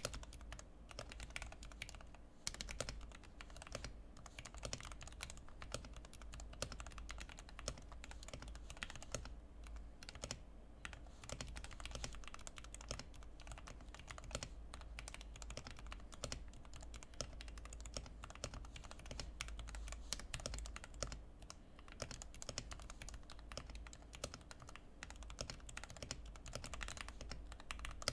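Fantech MAXFIT61 mechanical keyboard with lubed Outemu red switches and Cherry-profile keycaps, modded with tape, foam and silicone dampening, being typed on in a fast, continuous run of keystrokes.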